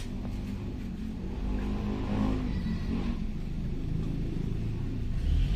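2008 Hyundai i10's four-cylinder engine running steadily, its pitch rising and falling briefly about two seconds in with a light rev. It runs evenly with no misfire, no longer the typewriter-like stutter it had before the repair.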